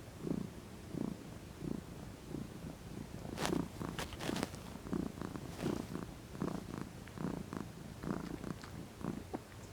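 Domestic cat purring close to the microphone, the purr swelling and easing with each breath about one and a half times a second, with a few sharp clicks around the middle.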